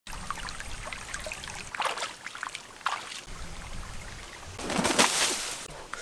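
Water trickling over stones in a shallow stream, a steady rushing hiss broken by a few short louder bursts. The loudest is a rush of noise lasting about a second, near the end.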